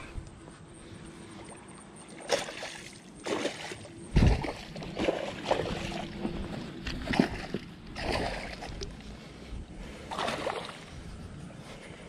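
Angler playing a hooked fish to the bank: irregular knocks, rustles and splashes of handling and movement. The loudest is a heavy thump about four seconds in.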